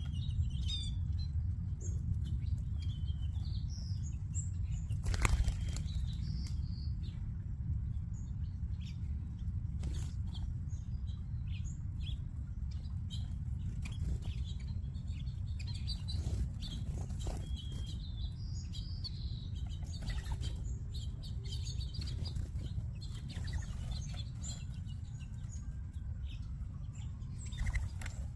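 A flock of small backyard birds, such as finches and sparrows, feeding: scattered short high chirps with repeated bursts of wing flutter as birds take off and land, the loudest flutter about five seconds in. A steady low rumble runs underneath.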